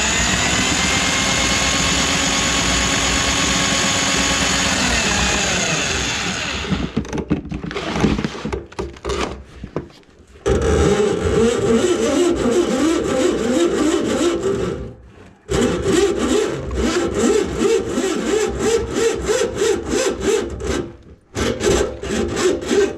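Motorized drain-cleaning machine working a grease-clogged kitchen sink drain line: a steady motor hum that winds down in pitch about five seconds in, then an uneven, choppy churning rattle broken by a few short pauses.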